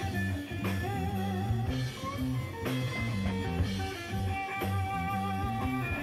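Background music led by guitar, with a stepping bass line and a drum beat about once a second.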